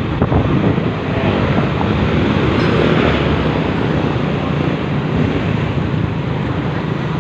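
Wind buffeting the microphone over the steady drone of road and engine noise from a vehicle moving at speed.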